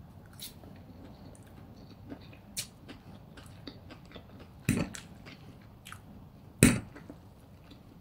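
Close-miked chewing of crispy funchoza glass noodles with chicken: soft wet mouth clicks and small crunches. Two much louder sharp knocks come about halfway through and again near the end.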